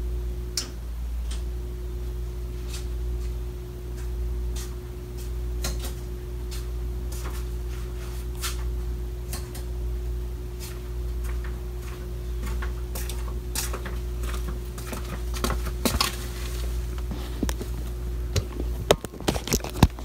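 Steady low electrical hum from the furnace with its breaker back on but the fan not yet running, a little bit of a humming with a thin steady tone over it. Scattered clicks and knocks grow busier near the end.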